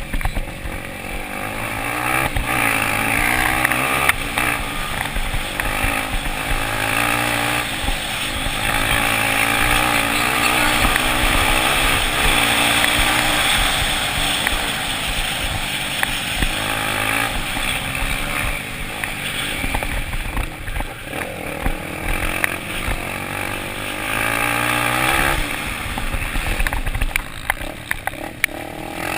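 Dirt bike engines racing on a velocross track, the pitch rising and falling over and over as the throttle opens and closes.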